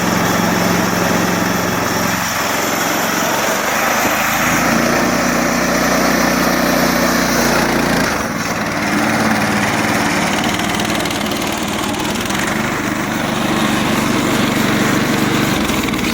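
Small gasoline engine of a Harbor Freight band sawmill running steadily at speed. Its pitch shifts a few times, about 3.5 and 8 seconds in and again near the end.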